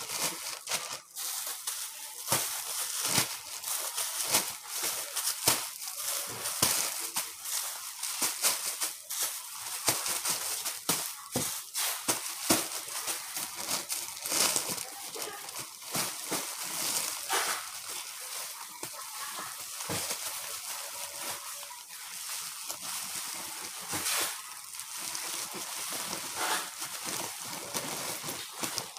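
Clear plastic bags and wrapping crinkling and rustling irregularly as bundles of folded clothes are handled and pushed into them.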